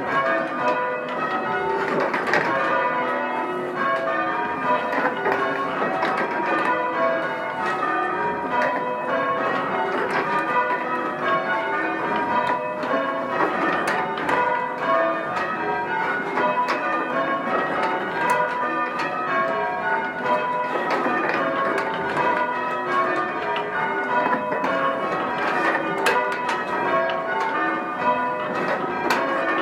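Change ringing on a ring of six church bells from mixed founders, hung in a wooden belfry. The bells strike one after another in a steady, even stream, each note ringing on into the next.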